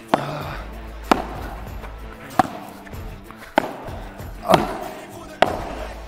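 Padel rally: the ball is struck back and forth with the paddles and bounces on the court, giving about six sharp hits roughly a second apart. Background music plays underneath.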